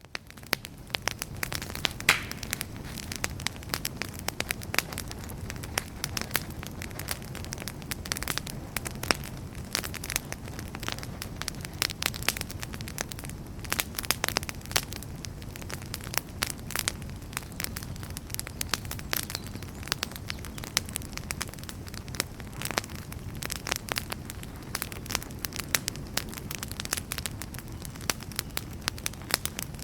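Wood campfire crackling, with frequent sharp pops and snaps over a steady low rumble of burning. The fire rises in from near silence in the first second.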